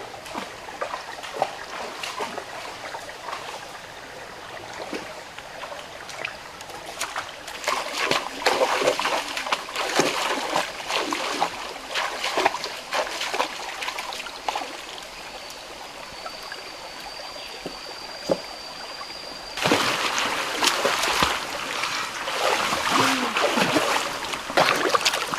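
Feet splashing through a shallow rocky stream in uneven bursts. About three-quarters of the way in, the sound switches abruptly to louder, steady churning water as a person swims in the stream. Before the change, a thin, steady high tone sounds for several seconds.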